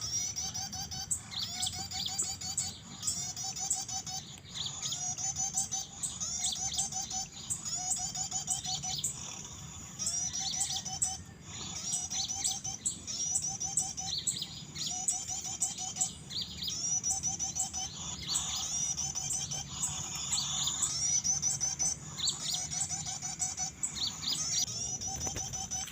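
Small birds chirping: rapid, repeated high-pitched phrases with a lower trilling note coming back roughly once a second.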